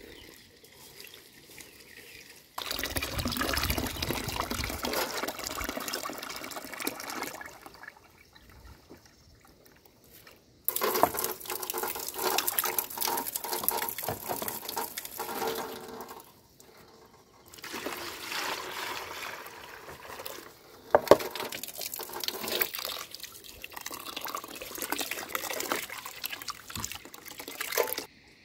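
Water from a tap running into a metal pot of corn rice (coarse ground maize) and sloshing as the grain is washed by hand. It comes in several spells of a few seconds each with short pauses between them, and there is one sharp knock about three quarters of the way through.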